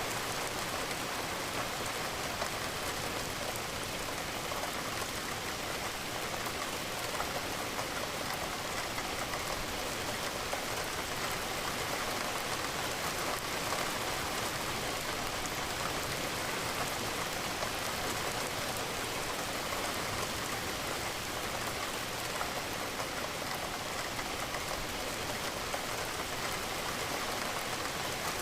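Steady rain falling, a dense even patter of raindrops that holds at one level throughout.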